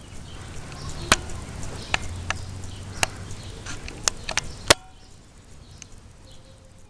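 Irregular sharp taps and clicks of fingers on a Maschine controller's pads and buttons, about seven in the first five seconds, over a low hum.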